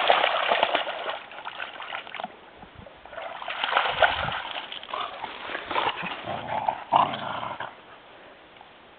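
A dog splashing through shallow, muddy creek water after a thrown stick, loudest in the first two seconds, followed by quieter bursts of sloshing through water and wet mud as the dogs come out onto the bank.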